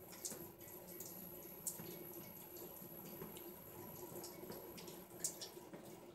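Faint steady hum with a thin high-pitched whine over low hiss, broken by a few light ticks.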